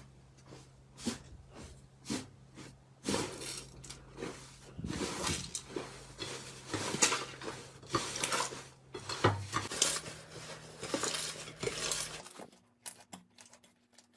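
Crumbly yellow 'tofu dregs' slime being pressed and squeezed by hand, giving a run of short crackles, pops and squishes. It thins out and goes quieter near the end.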